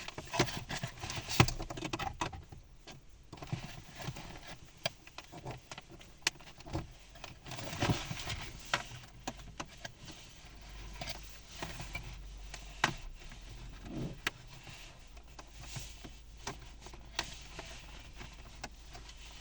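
Plastic toy packaging being handled: irregular clicks, crackles and rustling as wire ties are undone to free an action figure from its box fastenings. A low steady hum comes in about halfway through.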